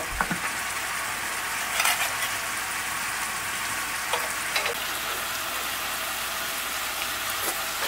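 Mushroom sauce sizzling steadily in a frying pan, with a few short clicks from time to time.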